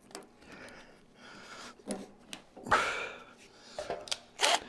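Light clicks and knocks of hands working among engine parts, with one sharp breath out, like a snort, about three seconds in.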